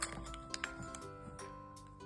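Background music: a soft melody of held, bell-like notes, with a few light clicks over it.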